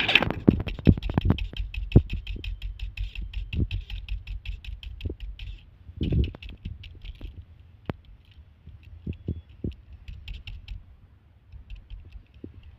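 Hard disk drive running with a low hum and many quick, irregular clicks and ticks. The clicking is dense for the first five or six seconds, then thins out to scattered ticks.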